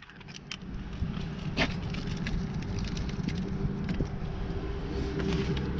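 A truck engine idling steadily, with scattered small clicks and plastic rustling from the hubcap's metal clips being handled in their bag, one sharper click about a second and a half in.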